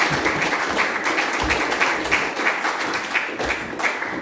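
Audience applauding, a dense patter of many hands clapping that slowly eases toward the end.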